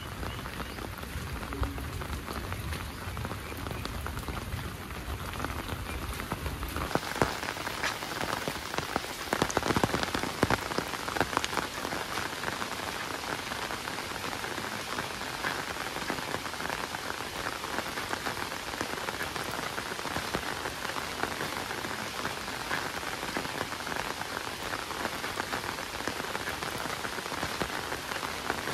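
Heavy rain falling and pattering steadily, with a low rumble under it at first. About a quarter of the way in the rumble drops away and the patter turns denser and brighter, with a few louder drop hits soon after.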